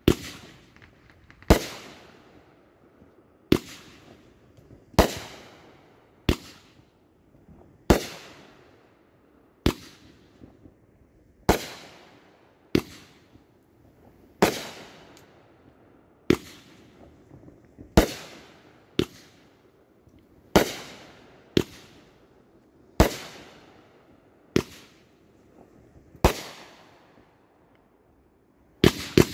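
Fireworks going off: a sharp bang roughly every one to two seconds, each trailing away over about a second. After a short lull near the end, a quick run of bangs starts.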